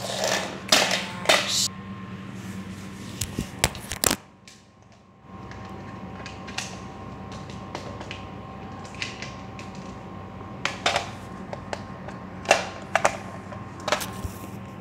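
Handling noise: scattered sharp clicks and knocks of hands moving against the recording device and plastic toys, over a steady low hum. The sound dips briefly about four seconds in.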